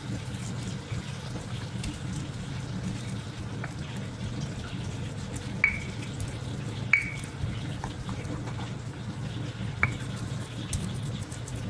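Stone pestle grinding chopped chilies in a stone mortar (ulekan and cobek), a steady wet crushing and scraping with soft clicks. Three sharp clacks of stone on stone ring out, about halfway through, a second later, and near the end.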